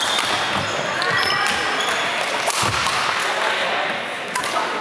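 Badminton play on a wooden sports-hall floor: sharp racket strikes on the shuttlecock and short shoe squeaks, over a steady murmur of voices from around the hall.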